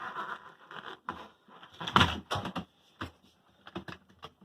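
Hand work on a front-load washer's parts: rubbing and scraping in the first second, a sharp knock about two seconds in, then a few lighter clicks.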